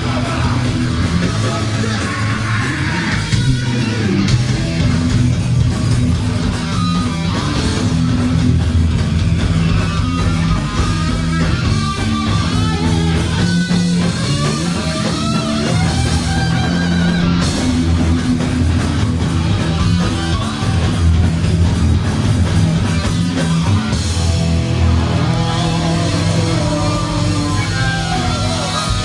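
Rock band playing live: electric guitar over a drum kit, loud and without a break.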